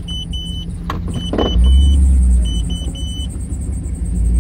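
Electronic warning chime inside a vehicle's cab, beeping in a repeating pattern of two short beeps and a longer one, over a steady low engine rumble that swells loudly near the middle. A sharp click a little under a second in.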